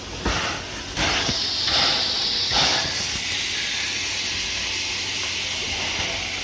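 C11 steam tank locomotive hissing steam as it creeps along slowly, with several short puffs in the first three seconds and then a steady hiss.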